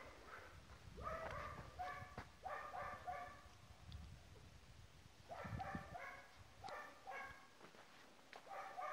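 A dog barking in the background: a run of several barks, a second run a few seconds later, and one more near the end.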